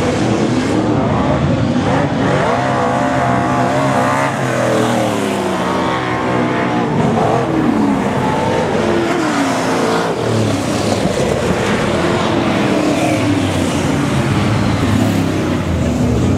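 A pack of speedway super saloons racing, their V8 engines revving up and down as they lap, with the pitch rising and falling as cars come by. One car passes close about halfway through.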